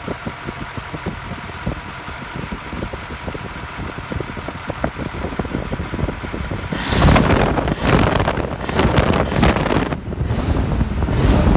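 V8 engine running through its exhaust: idling steadily at first, then revved about seven seconds in, easing off briefly near ten seconds and revved again.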